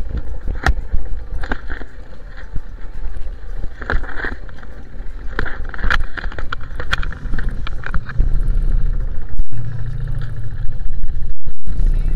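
Breaking surf and heavy rumbling buffeting on an action camera's microphone aboard a small outrigger boat, with scattered knocks of the hull and rigging. A steady low engine hum comes in about eight seconds in.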